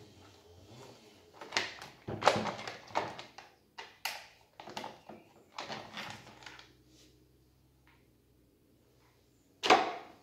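The plastic top cover of a Husqvarna 236e chainsaw being worked loose and lifted off by hand, making a quick run of clicks, scrapes and knocks. After a short pause there is one loud knock near the end.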